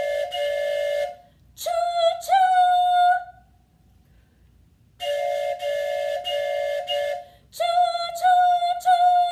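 Wooden train whistle blown in two steady, chord-like toots, each one to two seconds long and about five seconds apart. Each toot is followed by a run of shorter single-pitched hoots that slide up at their start.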